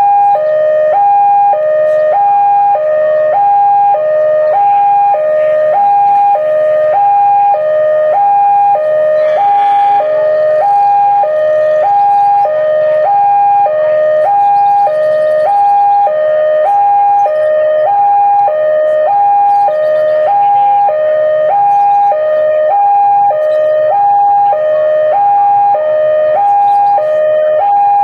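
Electronic two-tone warning alarm of a railway level crossing, sounding steadily and alternating a high and a low tone about once a second, signalling that a train is approaching.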